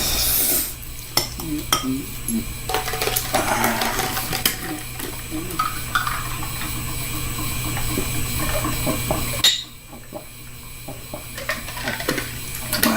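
Chopsticks clicking and scraping against a bowl of ramen as the noodles are picked up and eaten, in many short irregular knocks. A steady low hum underneath cuts off suddenly near the end.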